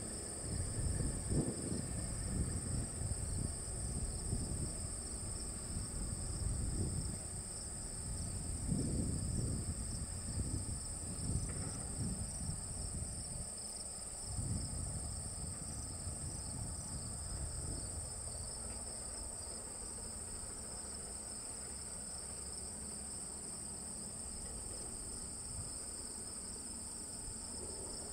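A steady, high-pitched chorus of field insects, holding two unchanging high pitches. Under it is a low, uneven rumble that settles down about two-thirds of the way through.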